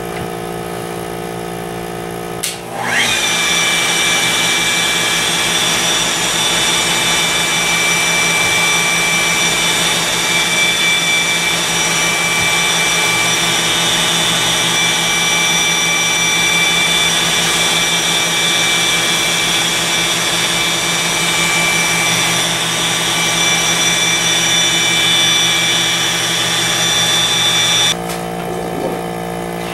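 Flex LE12-3 electric wet polisher on the Polishing Gantry QR5, running a 500-grit pad over a quartz countertop: it spins up with a brief rising whine a couple of seconds in, runs at a steady speed, and cuts off suddenly near the end. Under it the gantry's suction air pump hums steadily.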